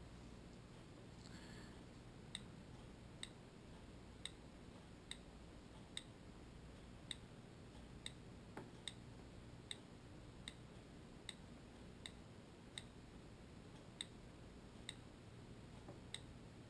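iPhone on-screen keyboard clicking faintly as each key is tapped, a slow, even run of single ticks about one a second while a web address is typed.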